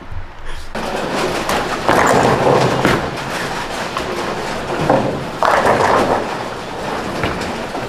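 Bowling alley noise: balls rolling down the lanes and pins clattering, with two louder crashes of pins, about two seconds in and again after five seconds.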